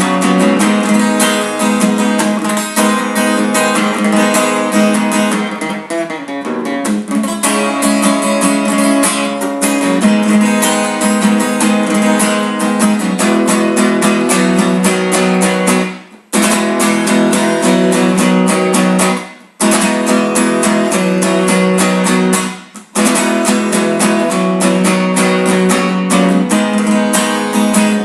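Acoustic guitar strummed steadily in an instrumental passage, with no singing. The chords stop dead for a moment three times in the second half.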